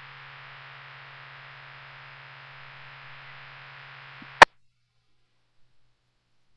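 Radio receiver on an open channel with no voice: a steady hiss over a low hum, cut off by one sharp click about four and a half seconds in as the squelch closes.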